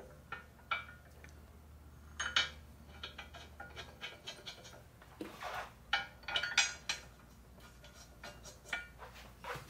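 Scattered light metallic clinks and clatter of metal parts and tools being handled on the workbench, with a few sharper knocks about two seconds in and again around six seconds.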